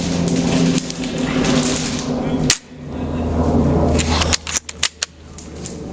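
Sharp clicks of airsoft gunfire over steady rustling noise: one crack about two and a half seconds in, then a quick few more a little before the end.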